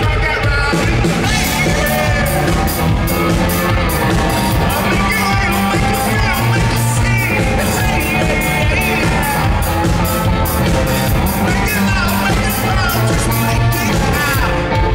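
Rock band playing live with guitars, bass and a steady driving drumbeat, and a singing voice over them, as heard from the audience through a camera microphone.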